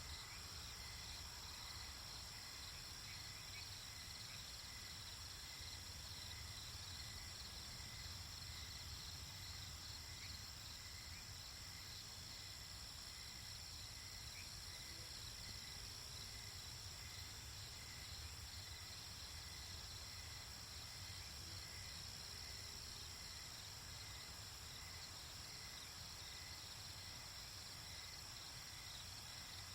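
Night ambience of crickets and other insects trilling steadily in a continuous chorus, with a faint chirp repeating every second or so and a low steady rumble underneath.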